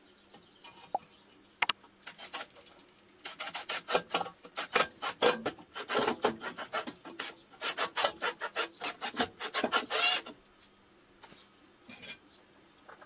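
Hand screwdriver driving a screw through a cast-iron wok handle bracket into a turned padauk wood handle: a rapid, irregular run of short scraping strokes that starts a couple of seconds in and stops abruptly about ten seconds in.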